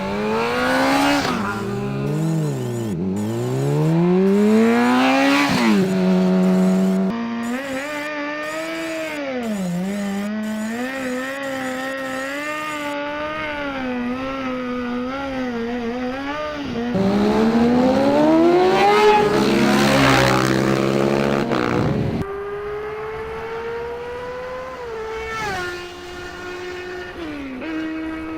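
Car engine sound effects: an engine revving, its pitch repeatedly climbing and dropping as if through gear changes, with loud high-revving surges a few seconds in and again past the middle.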